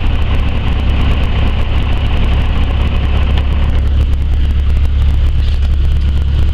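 Single-engine light aircraft's piston engine and propeller running at low power, a steady drone heard from inside the cockpit.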